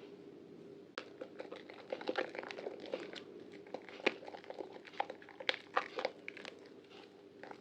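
Soaked bar of Prima Protect White soap being squeezed and lathered by hand, giving irregular wet crackles and sharp clicks that start about a second in.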